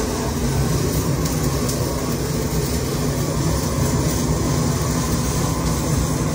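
Propane torch burning steadily, preheating cold steel at a bridge I-beam joint before welding.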